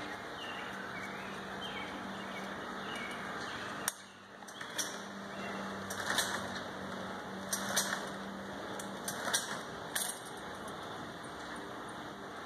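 Faint, repeated pull-start attempts on a lawn mower with its blade removed: several short rasps of the recoil starter cord, the engine not catching, over a steady low hum.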